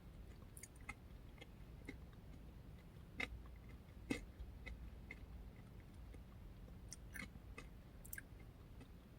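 Faint chewing of a mouthful of oatmeal and yogurt parfait, with scattered small wet clicks and two louder ones about three and four seconds in.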